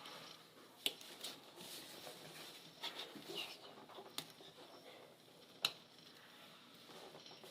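A few short, light clicks and knocks of tools or parts being handled, spaced irregularly, with faint rustling between them; the sharpest knock comes about six seconds in.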